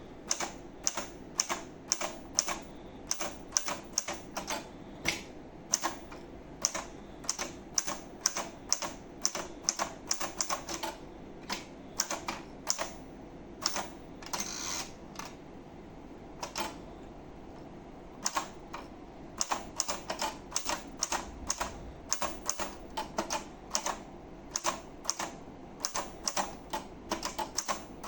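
Hermes Baby manual portable typewriter being typed on: a steady run of sharp keystrokes, two to three a second. About halfway through comes a longer rasping sound and a short pause before the typing resumes.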